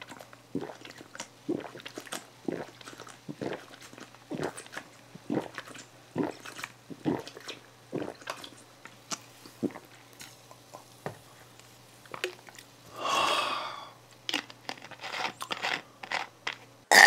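A person gulping cola straight from a plastic bottle, about two swallows a second, broken once by a short breathy sound about two-thirds of the way through before a few more gulps.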